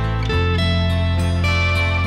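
Instrumental break of a slow pop song with no singing: held bass notes under a melody, the bass changing about a third of a second in.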